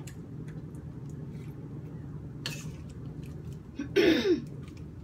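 Metal tongs clicking and scraping against a stainless frying pan while stir-fried shrimp is lifted out to serve, over a steady low hum. About four seconds in, a short loud throat clearing.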